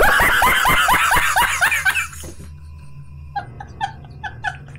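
A man laughing hard in a loud run of rapid, falling cackles for about two seconds. After a brief lull, short, evenly spaced high-pitched chirps follow.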